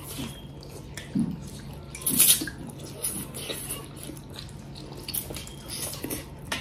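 Eating sounds: chewing and biting, with scattered small clicks and clinks of cutlery and dishes, and one louder crunch or clatter a little over two seconds in.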